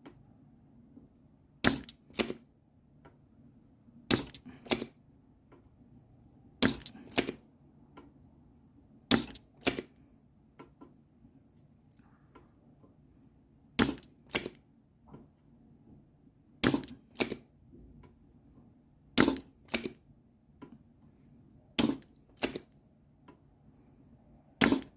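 Spring-loaded hand desoldering pump (solder sucker) being cocked and fired over and over, pin after pin. Each cycle is a pair of sharp plastic snaps about half a second apart, repeating roughly every two and a half seconds.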